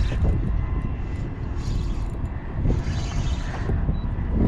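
Wind rumbling and buffeting on the microphone out on an open boat, a steady irregular low rumble with hiss that swells and fades.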